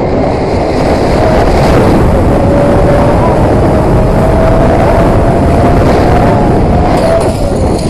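Loud wind rushing over an action camera's microphone during a fast swing through a canyon on a harness, with a long steady tone over it from about two to seven seconds in.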